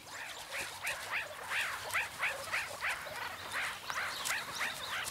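Meerkat pups giving a rapid series of short, high chirps, each rising and falling, about three a second: the begging calls pups make while following a foraging adult.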